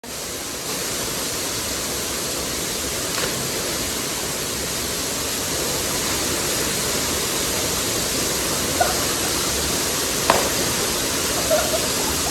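A waterfall pouring steadily: an even, continuous rush of falling water, with a couple of faint clicks over it.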